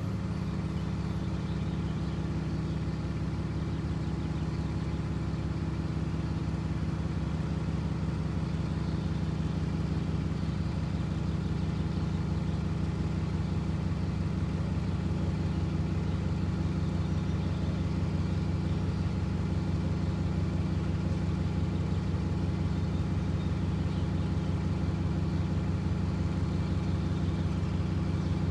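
A bus's engine idling steadily with a low hum while it stands waiting.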